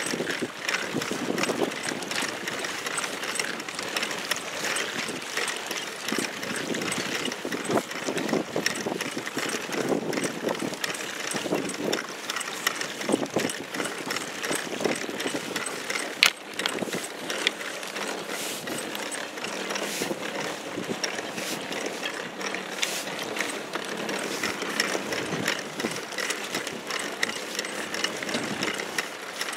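Choppy water lapping and splashing against a small inflatable boat, with wind noise and a continual run of clicks and creaks from the boat's pedal-drive mechanism.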